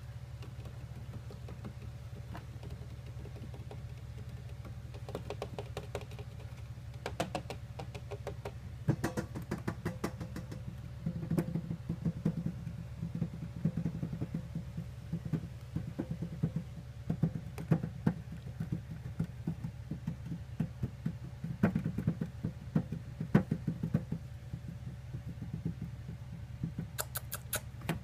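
Irregular small clicks and light taps from a hamster moving about its plastic cage. They come thicker from about nine seconds in, over a steady low hum.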